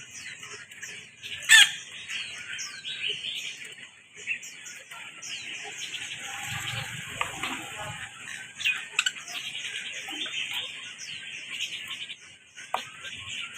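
Several parrots chattering, a dense stream of short high chirps that drop in pitch, with one loud call about one and a half seconds in.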